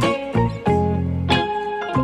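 Upbeat instrumental background music with plucked and keyboard-like notes over a bass line.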